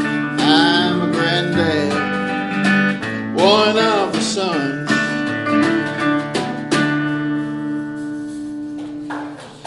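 Closing bars of an acoustic country song: strummed acoustic guitar under a sliding, bending melodic line, with the chords held and dying away near the end.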